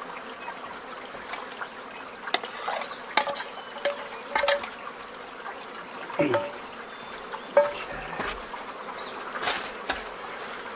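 Metal fork and pans clinking and scraping in a few irregular knocks as linguine is served from a frying pan into a cook-kit bowl. A creek's flowing water hisses steadily underneath.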